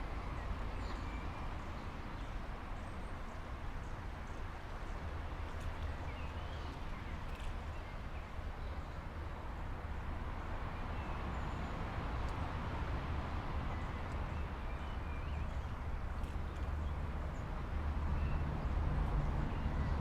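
Steady rush of river water over a low rumble that grows louder near the end, with small birds chirping now and then.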